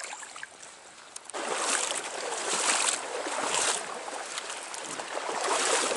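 Stream water splashing and sloshing close by. It starts suddenly about a second and a half in and goes on in uneven surges.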